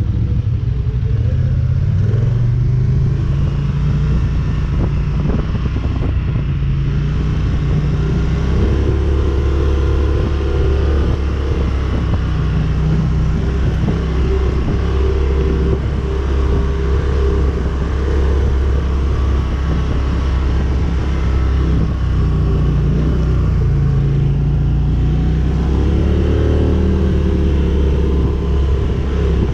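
ATV engine running steadily as the quad is ridden, its pitch rising and falling a little with the throttle.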